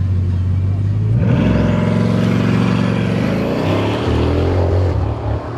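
A supercar's engine accelerating hard from a low rumble. About a second in, the pitch climbs steeply for about two seconds with a thin high whine rising above it, then it falls away near the end.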